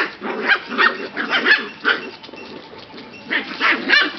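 Puppies play-fighting, giving short barks and yips in quick irregular succession, with a brief lull about halfway through before a few more near the end.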